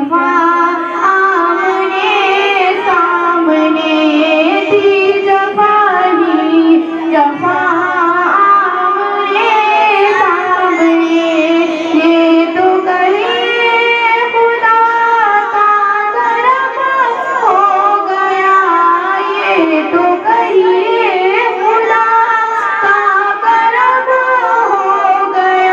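A high female voice singing a naat, an Urdu devotional hymn in praise of the Prophet Muhammad, in long held notes that waver and glide between pitches.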